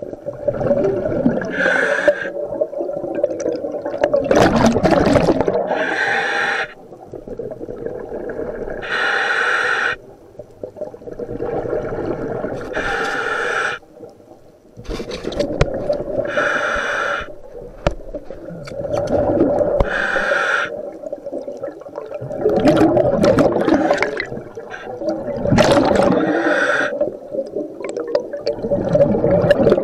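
Scuba diver breathing underwater through a regulator: a hissing inhalation every three to four seconds, alternating with rushing, bubbling exhalations.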